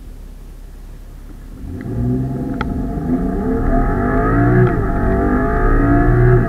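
BMW 335i F30's turbocharged 3.0-litre straight-six, fitted with an M Performance and Akrapovic exhaust, heard from inside the cabin. It idles, then goes to full throttle about two seconds in, its note rising steadily in pitch. There is a short break at the upshift into second about five seconds in and at the next upshift near the end.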